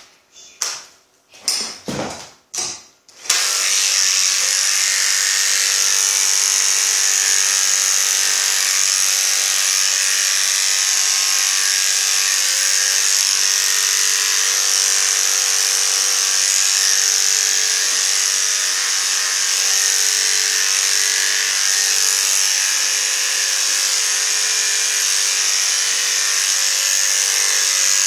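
A few handling clicks, then electric dog grooming clippers switch on about three seconds in and run with a steady, high buzz as the terrier's coat is clipped.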